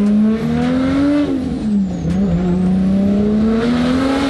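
Nissan Skyline R32 GTR's straight-piped, single-turbo RB26 straight-six accelerating at part throttle, heard from inside the car. The revs climb for about a second, fall back, climb steadily again and drop off near the end. A faint high whistle rises and falls with the revs.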